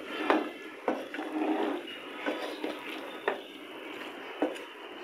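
A spatula stirring and scraping a thick mix of moong dal and fried fish heads in a pan, knocking against the pan at irregular intervals about once a second.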